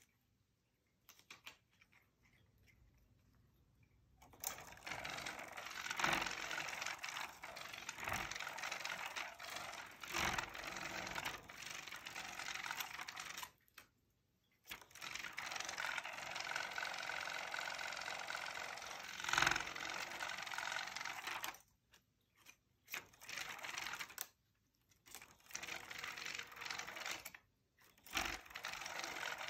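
Motorized spinning cat toy whirring and clattering as its wire arm turns, with a few sharper knocks as a cat bats at it. The sound stops for a few seconds near the start and cuts out briefly several times later on.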